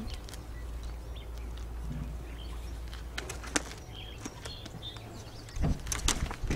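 Wind rumbling on the microphone with scattered clicks and rustles of a light line being laced around a wooden boom and pulled through a sail. A few short bird chirps come in the middle, and a louder burst of rope and handling rustle comes near the end.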